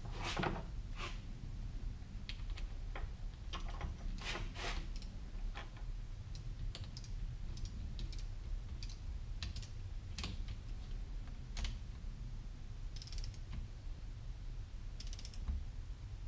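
Ratchet of an inch-pound torque wrench clicking as the small bolts of a trolling motor's lower-unit cap are run down to 30 inch-pounds. The clicks are irregular, with a few short runs of quick ticks near the end.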